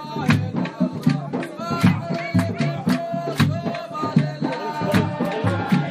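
Music with a steady percussion beat and a wavering melodic line over it.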